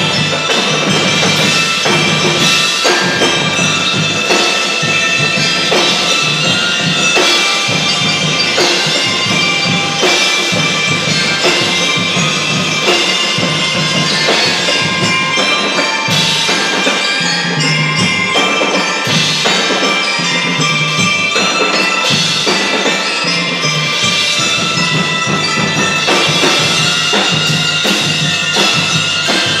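Drum and lyre corps playing. Ringing mallet keyboards and bell lyres carry a melody over a steady beat from snare, tenor and bass drums and cymbals.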